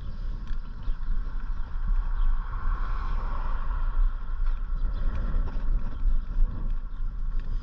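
Wind buffeting the microphone in an uneven low rumble, with a faint steady hiss above it that swells briefly about three seconds in.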